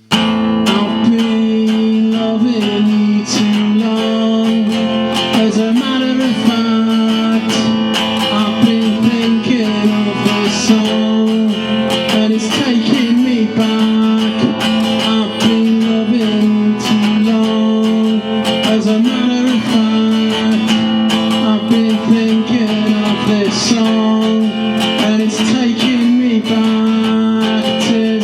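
Solo acoustic guitar playing an instrumental intro, starting suddenly, with plucked notes over one held low note.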